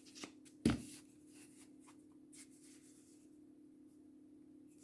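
A single knock about a second in, then faint rubbing and light clicks from a cardboard firework fountain being handled, over a faint steady hum.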